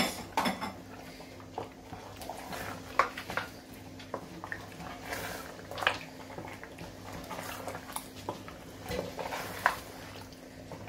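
A wooden spoon stirring chunks of meat and bone in a large aluminium pot of soup, with scattered knocks and scrapes against the pot, over a steady low hum.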